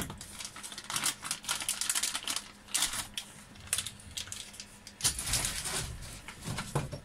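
Packaging and a small plastic RC gearbox being handled: irregular clicks, clatters and rustles, with a longer rustle a little past halfway.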